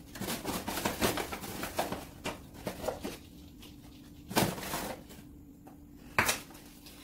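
A metal cup flour sifter being handled over a plastic mixing bowl: scattered light knocks and rustles, a thump about four and a half seconds in and a sharp knock near the end.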